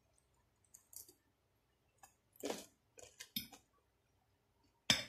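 Close-up eating sounds: a few short crunches and mouth clicks as crispy grilled bacon is bitten and chewed, with a sharper click near the end as a fork works spaghetti on the plate.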